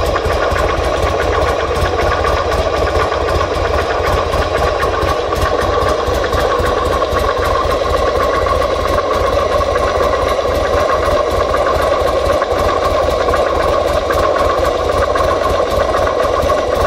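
2005 Buell XB9SX's air-cooled V-twin engine idling steadily, with an even, rapid pulsing beat and no revs.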